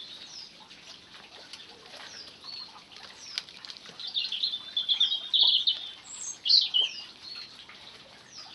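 Small garden birds singing: a short, high falling chirp repeated about once a second, with a louder twittering song from about four seconds in. Faint clicks and rustles of soil and a plastic plant pot being handled.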